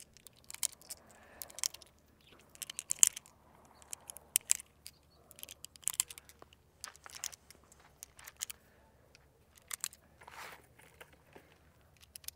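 9mm cartridges being thumbed one by one into an 18-round pistol magazine: a string of sharp metallic clicks at irregular intervals.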